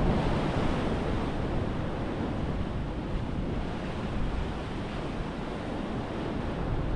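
Sea waves washing and breaking against a rocky shore, a steady surf with a slightly louder surge at the start, and wind on the microphone.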